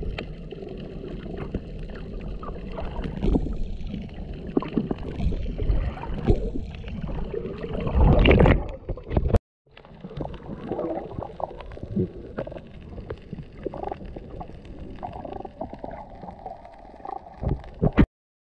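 Muffled underwater sound of moving water: a low rumble with scattered clicks, swelling loudly about eight seconds in. It cuts out just after nine seconds, then resumes quieter with more frequent clicks.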